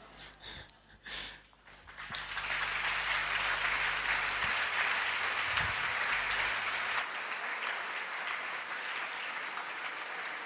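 Audience applauding: a few scattered sounds at first, then steady, sustained applause that swells in about two seconds in.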